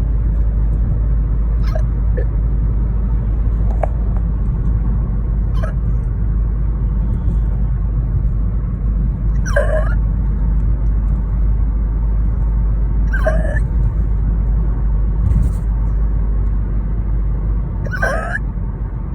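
A woman hiccupping, one short hiccup every few seconds; the three loudest come in the second half. Under them runs a steady low rumble.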